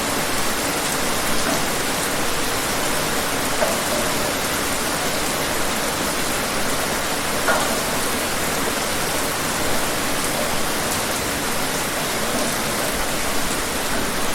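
Steady rain falling outdoors, an even hiss with occasional single drops and splashes standing out.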